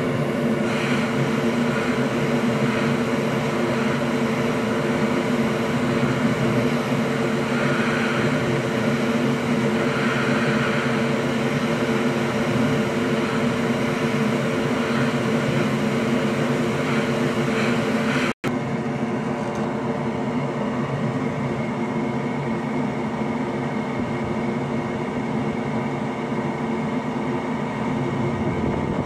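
Steady whirring drone of an electric blower or fan motor, with several held tones. It drops out for an instant partway through and comes back slightly quieter.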